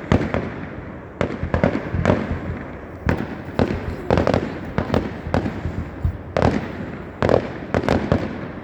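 Fireworks display going off in a rapid, irregular string of bangs, about two or three a second.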